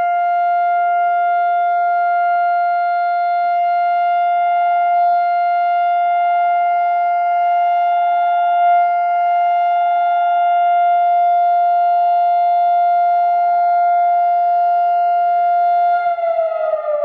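Civil defense siren holding one steady tone: the memorial siren of Israel's Memorial Day (Yom HaZikaron), sounded for a minute of standing silence. Near the end it begins winding down, its pitch falling.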